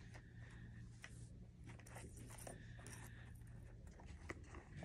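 Faint small clicks and handling noises as a miniature toy gun keychain is packed back into its box, with one sharper click about four seconds in.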